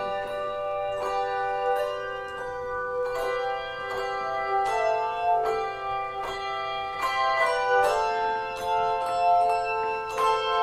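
Handbell choir playing a piece: bells struck in melody and chords, each note ringing on and overlapping the next, with new strikes every half second or so.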